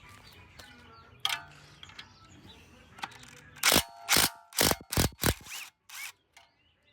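Hand socket ratchet clicking as bolts are worked loose on an engine, then a run of about five loud metal clanks with a short ring.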